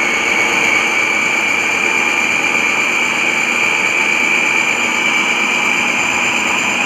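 Preethi Zodiac food processor motor running at speed, its blade beating egg whites and chopped garlic toward a white froth, with a steady high-pitched whine.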